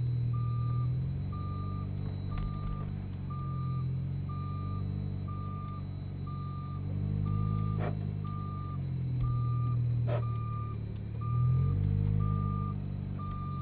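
Car engine running, its pitch rising and falling with speed, under a steady electronic warning beep about once a second. Two sharp clicks come in the second half.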